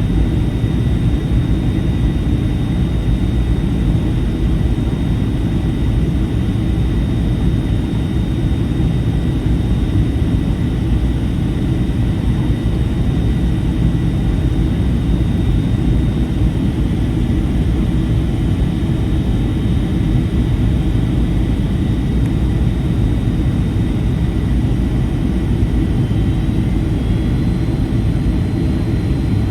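Steady cabin noise of a Boeing 757-300 on final approach: the low rush of airflow and the hum of its Rolls-Royce RB211 turbofans, with a thin steady engine whine above it. A second faint whine joins slightly higher near the end.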